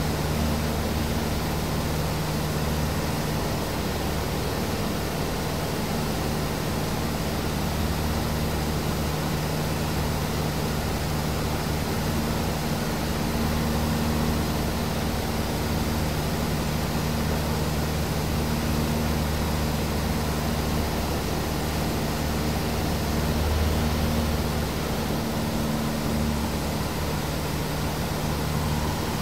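Cessna 150 heard from inside the cabin in flight: the four-cylinder Continental O-200 piston engine and propeller drone steadily, a low engine hum under a broad rushing noise.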